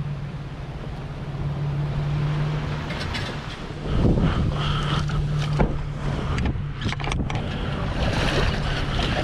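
A watercraft engine running steadily with an even hum. About four seconds in, louder water rush and splashing join it.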